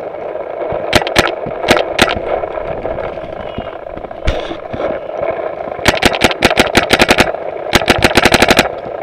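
Paintball marker firing: a few single shots in the first two seconds, then two rapid strings of about ten shots each in the last three seconds. A dull thump comes about four seconds in.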